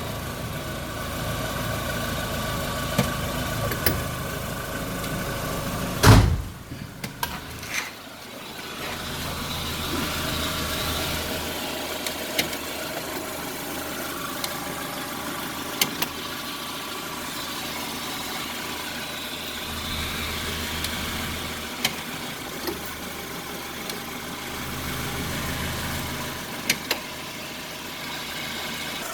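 Chevrolet Zafira engine idling, with one loud knock about six seconds in as the automatic gearbox is put into gear, and a few lighter clicks afterwards. The knock is the noise on engaging gear that the owner takes for a faulty engine mount.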